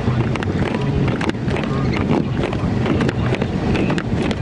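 Car cabin noise while driving on snow-covered roads: a steady low rumble of engine and tyres, with frequent small clicks and knocks.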